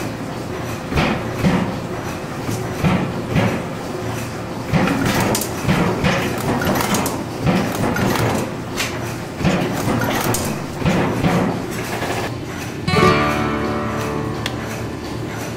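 Bolt former (cold-heading machine) running, its forming strokes striking in a steady rhythm about twice a second over a running clatter. About 13 seconds in, acoustic guitar music takes over.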